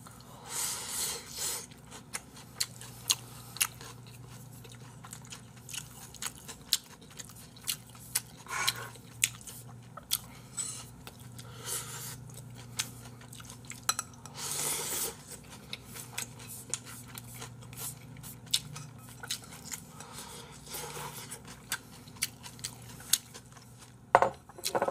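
Close-miked eating with chopsticks from a bowl held to the mouth: wet chewing, with many small sharp clicks and a few longer slurping or smacking sounds, over a low steady hum.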